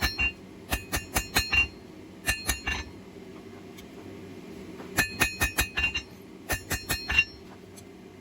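Hand hammer striking a hot steel blade blank on an anvil, in short runs of quick blows with pauses between them; each blow gives a bright metallic ring. The smith is tapering and levelling the handle-to-blade transition.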